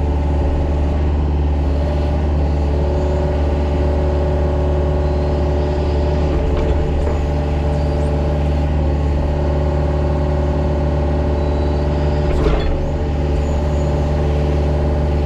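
Excavator's diesel engine running at a steady pitch while it works, with a sharp clunk from the machine near the end.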